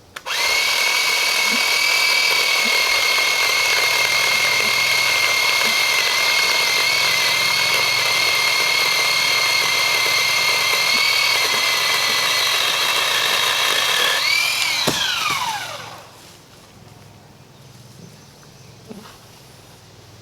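Bauer 20V cordless pole saw running at a steady high whine for about fourteen seconds while cutting a hanging branch. The trigger is then released and the motor winds down with a falling pitch.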